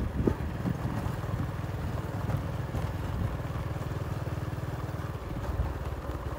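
Motorcycle engine running steadily as it rides along a gravel road, a low, even throb.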